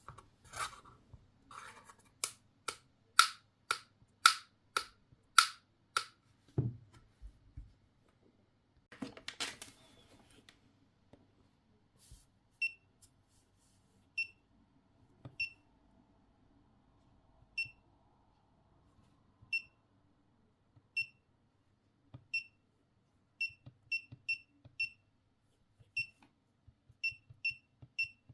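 Electronic beeping: first a quick run of about eight evenly spaced lower pulses, about two a second, then short high-pitched single beeps at irregular intervals that come closer together toward the end.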